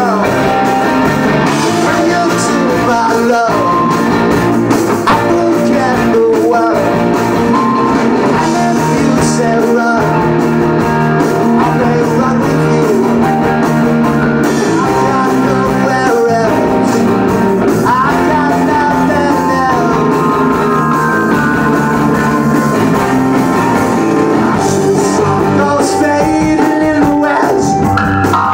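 Live rock band playing, with electric guitar, bass, drums and a sung vocal, loud and continuous as picked up in the room.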